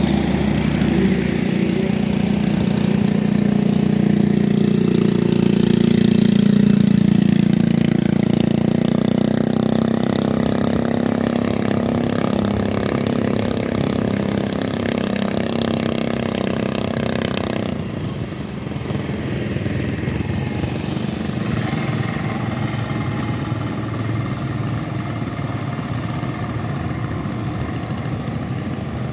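Go-kart's Mahindra Duro scooter engine running as the kart pulls away, a steady engine note that swells for the first several seconds. About two-thirds of the way in the sound changes suddenly to a thinner, rougher hum.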